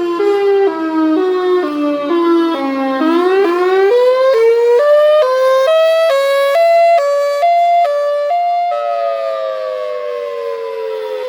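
Federal Signal Thunderbolt 1003 dual-tone siren sounding its Fire Wail signal. The pitch jumps back and forth about twice a second as it falls, then climbs. Near the end it stops jumping and winds down in one smooth falling wail.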